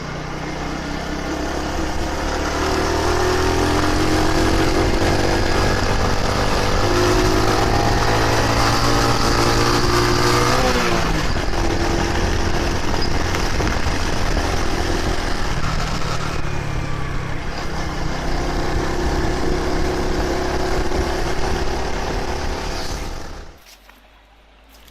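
Motor vehicle engine running under way, its pitch rising and falling with speed and changing sharply about ten seconds in. It cuts off abruptly near the end.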